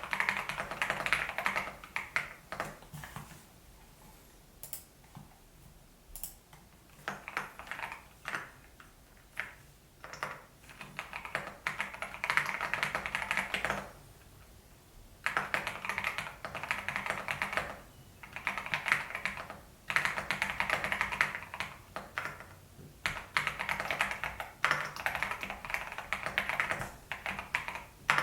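Typing on an EPOMAKER TH80 PRO V2 mechanical keyboard with Mulan switches: runs of fast keystrokes, each a few seconds long, broken by short pauses.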